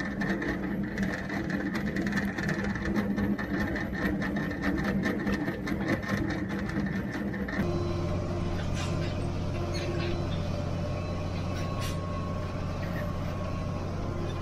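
Tractor-drawn manure spreader running, its beaters flinging muck with a rapid, even clatter over the tractor engine's steady drone. About halfway through the sound changes to the tractor engine heard from inside the cab: a steady low drone with a few faint ticks.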